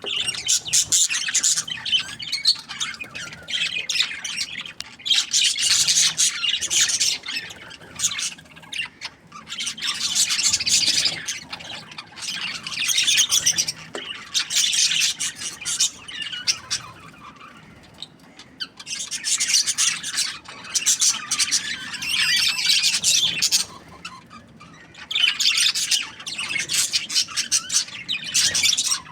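Budgerigars chirping and chattering in quick, high-pitched warbles, coming in spells of a second or three with short lulls between them.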